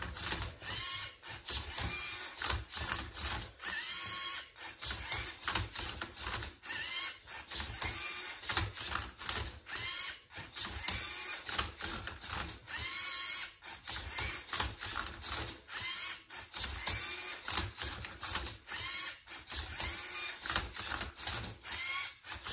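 LEGO Mindstorms EV3 MindCuber robot turning and flipping a Rubik's Cube. Its servo motors whir in short runs that rise and fall in pitch, about one a second, among clicks and clacks of plastic parts and cube layers.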